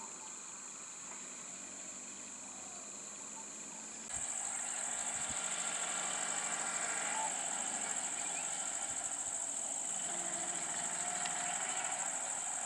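Steady high-pitched shrilling of insects in roadside forest, jumping abruptly louder about four seconds in. From then on a small vehicle engine runs underneath it, a three-wheeler auto-rickshaw on the road.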